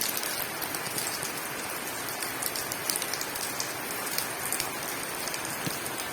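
Steady rain falling and pattering on surfaces, an even hiss with many small sharp drop ticks.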